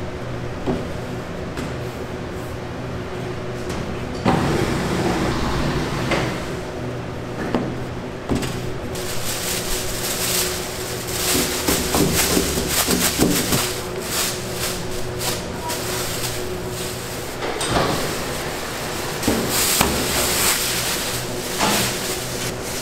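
Bakery production-room work sounds: a steady machine hum under irregular clatter, knocks and rustling from pastries, trays and equipment being handled. The handling is busiest through the middle and again near the end.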